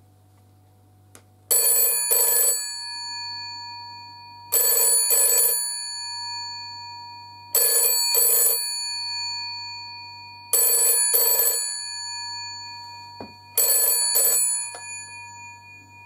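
GPO 782 telephone's 700-series bell ringer ringing in the British double-ring cadence: five ring-ring pairs about three seconds apart, the bell tone hanging on between pairs. The ringing stops after the fifth pair as the handset is lifted.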